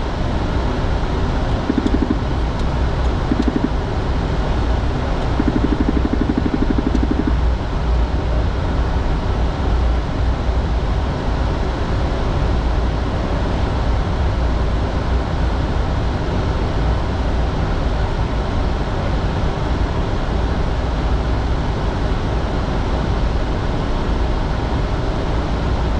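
Steady cockpit noise of a business jet climbing after takeoff: a constant rush of air and engine drone, heaviest in the deep low end. A short buzzing sound comes a few times in the first seven seconds.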